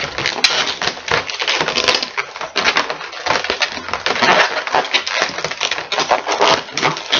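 Inflated latex 260 twisting balloons rubbing and squeaking against each other as they are twisted and tied together: a dense, unbroken run of short scrapes and squeaks.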